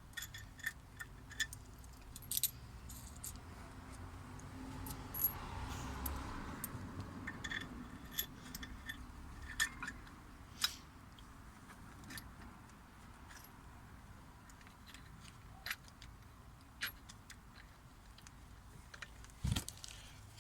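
Scattered light metallic clinks and clicks of a steel bolt, washer and nut being handled and fed through a hole, with a soft, longer rubbing noise about five seconds in.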